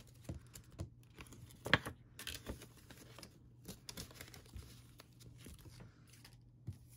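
Paper banknotes rustling and crinkling as they are handled and laid out on a table, in short scattered bursts with a sharper crackle a little under two seconds in.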